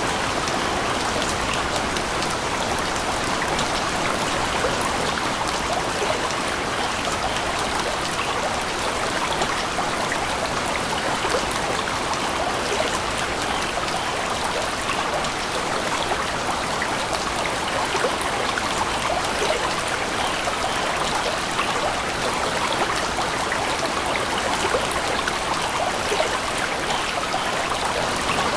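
Steady rushing water with a dense, fine patter, unchanging throughout.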